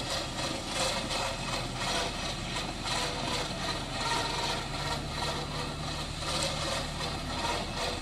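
Truck engine running steadily at idle, its low hum shifting pitch about five seconds in, under a constant rushing, grainy noise.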